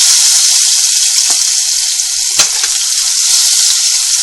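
Chopped green chilies, mustard seeds and urad dal sizzling in hot oil in a pan as a steady hiss. One sharp click comes about two and a half seconds in.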